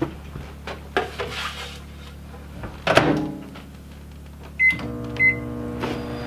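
Microwave oven being started: a few knocks and a loud clunk of the door shutting about three seconds in, two keypad beeps, then the oven running with a steady hum.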